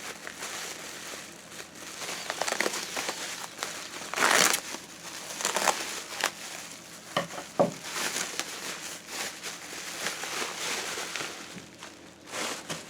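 Bubble wrap crinkling and rustling in irregular bursts as a package is unwrapped by hand, with a louder burst about four seconds in.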